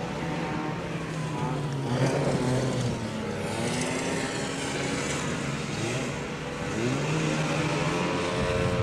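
Off-road ATV engine running and revving, its pitch rising and falling as the throttle changes, dipping about six seconds in and climbing again a second later.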